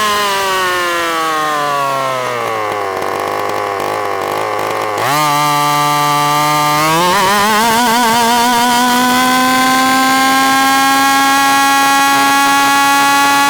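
Small 45cc two-stroke engine of a Baja 5B gas RC car, heard up close from a microphone mounted on the car. The engine winds down for about four seconds as revs drop, picks up again about five seconds in, wavers briefly, then climbs to high revs and holds a steady high pitch.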